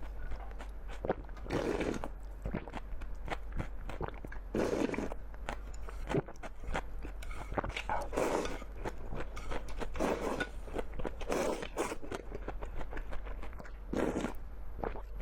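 A person eating: repeated bites and chewing, with many small crunches and clicks and a fuller noisy burst every second or two.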